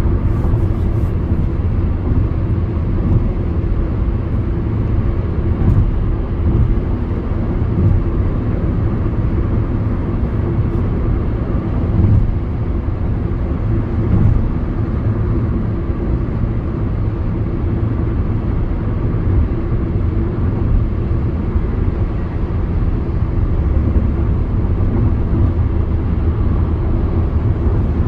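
Car driving at a steady speed: continuous low road and engine rumble, with a couple of faint ticks about one and six seconds in.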